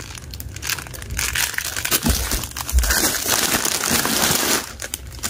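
Plastic snack wrappers and bags crinkling as packs of groceries are handled in a cardboard box, with a couple of dull bumps about two to three seconds in.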